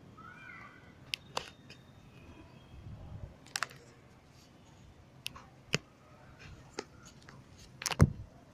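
A handful of short, sharp clicks and knocks at uneven intervals, about seven in all, the loudest near the end, over a faint steady background. A brief faint call slides in pitch near the start.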